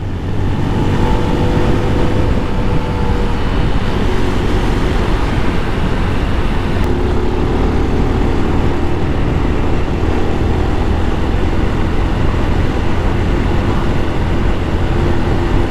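Honda Wave's small single-cylinder four-stroke engine running steadily while riding along, with wind rushing over the microphone.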